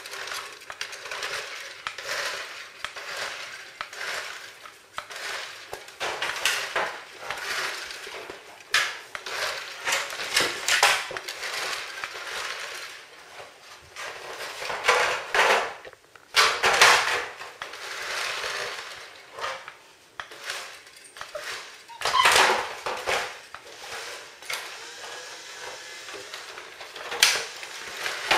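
Irregular plastic clattering and rattling of a toy car pushed and nosed by Czechoslovakian wolfdog puppies on a tiled floor, louder in a few clusters.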